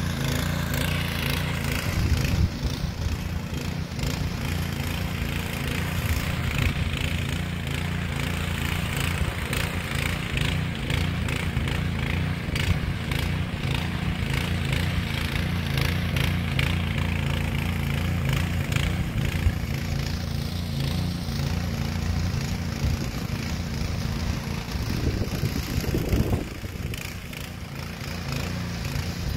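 Rotakt RO75RS 7 HP petrol motor hoe running steadily under load as it tills hard ground, its engine note steady with a rattle from the working tines. Near the end the engine note shifts and the level drops briefly.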